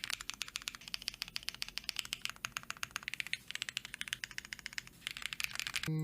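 Fast, continuous typing on a Minerva LX custom mechanical keyboard with Techno Violet switches on an FR4 plate, a rapid run of key clacks. Music comes in right at the end.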